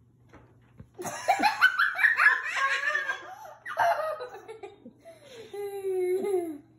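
Hearty laughter in quick, high-pitched bursts starting about a second in, then a long held vocal sound near the end that drops in pitch as it stops.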